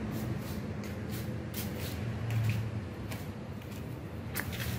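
Handling noise: a few soft clicks and rustles as parts and the camera are moved, with a sharper click or scrape near the end, over a low steady background hum.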